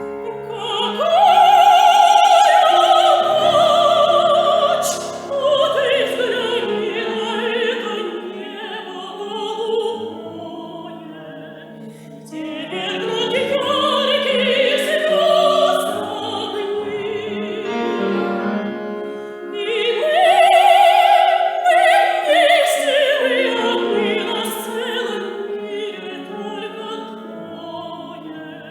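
Operatic soprano singing with piano accompaniment: three long phrases, each opening loud on a high held note and falling away lower.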